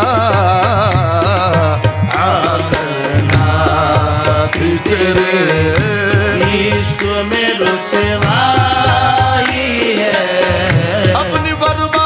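Qawwali music: tabla keeps a steady rhythm under a wavering melodic lead.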